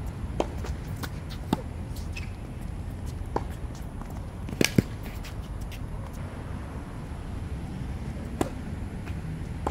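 Tennis rally on an outdoor hard court: sharp pops of the ball coming off racket strings and bouncing on the court, one every second or few seconds, with the loudest two in quick succession about halfway through. A steady low rumble runs underneath.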